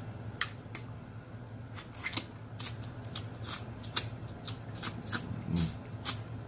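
Close-up eating sounds: wet lip smacks and mouth clicks from chewing and sucking food off the fingers, a quick irregular series of short crisp clicks over a low steady hum.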